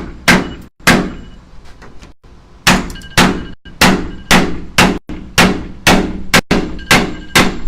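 Hammer blows struck in a steady run, about two a second, with a short pause about a second in.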